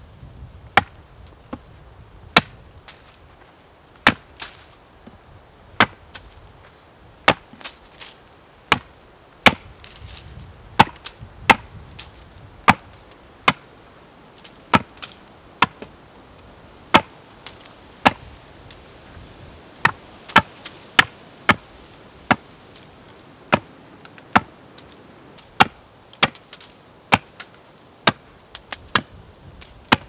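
Wood being chopped by hand, a long run of sharp single strikes at an uneven pace of about one or two a second.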